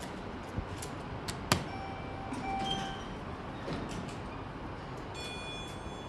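A sharp click from a Schindler 500A traction elevator's hall call button being pressed, about a second and a half in. Short electronic tones follow, and the elevator doors slide open near the end.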